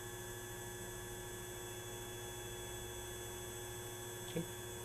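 Steady electrical hum with several constant tones. One brief click about four seconds in.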